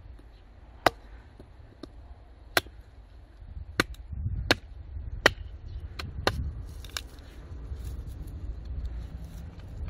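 About eight sharp, irregularly spaced blows on a log as it is split by hand into firewood.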